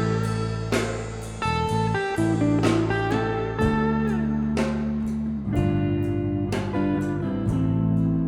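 Live band playing an instrumental passage with no singing: guitar lines with a sliding note, over steady bass notes and regular drum hits.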